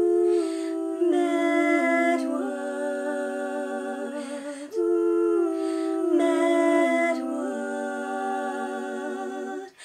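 One woman's voice multi-tracked into three-part a cappella harmony, singing long sustained chords with no instruments. There are two phrases, with a short break about halfway through.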